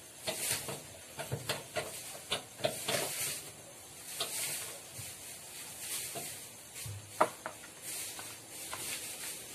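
Irregular light clicks and knocks with brief hissy rustles, like handling noises; one sharper knock about seven seconds in.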